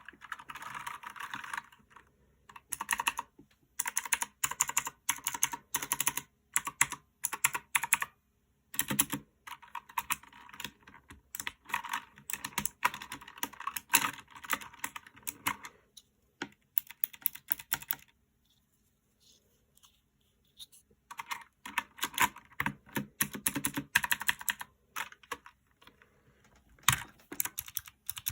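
One Up G300 mechanical keyboard with clicky Outemu Blue switches being typed on in quick bursts of key clicks, broken by a few seconds' pause a little past the middle.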